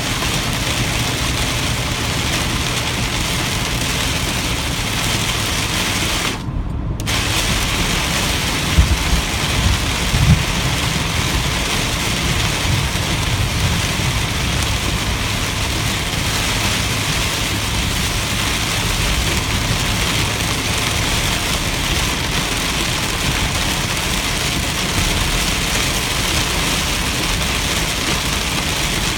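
Heavy rain on a moving car, an even hiss over the low rumble of the engine and road. The rain hiss drops out for under a second about six seconds in, and a few low thumps come around nine to ten seconds.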